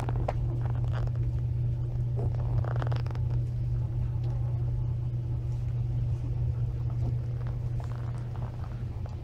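A steady low hum, with faint rustling and small scuffs as young puppies and their mother move about on blankets.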